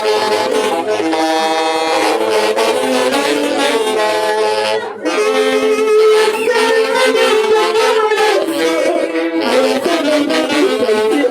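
An orchestra playing a tune with saxophones carrying the melody, with a brief pause about five seconds in.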